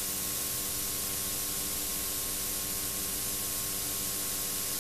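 Steady hiss with a few faint, constant hum tones: the background noise of a VHS tape transfer, with no other sound.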